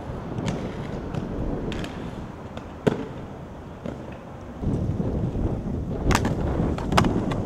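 Inline skate wheels rolling with a rough grind over pavement, broken by sharp clacks of the skates striking the ground and ledges; the loudest comes about three seconds in, and a quick run of them near the end.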